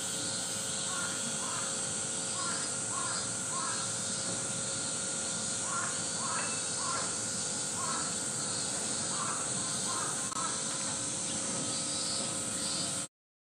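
Short animal calls repeated in groups of two to four every few seconds, over a steady high hiss; the sound cuts off suddenly just before the end.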